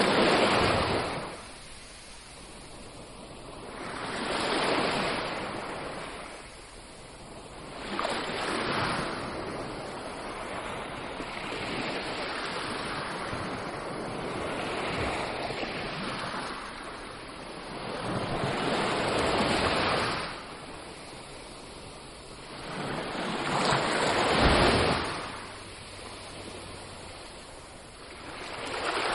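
Sea waves breaking and washing up on a beach, surging in and drawing back about every four to five seconds, with a longer, steadier wash in the middle.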